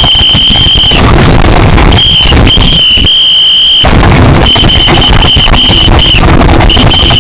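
A shrill, steady high-pitched alarm tone sounding in repeated blasts of uneven length, very loud and distorted over a harsh crackling noise.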